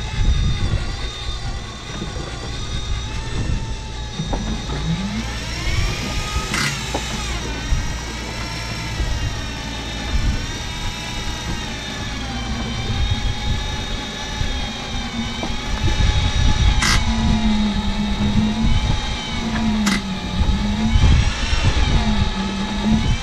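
Boat engine running with a steady low rumble, its pitch slowly rising and falling. Three sharp clicks come through, one near the middle and two near the end.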